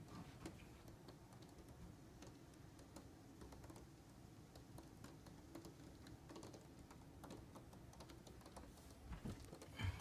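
Faint, irregular tapping and ticking over a faint low buzz: bees knocking against the window glass and buzzing. A couple of slightly louder knocks come near the end.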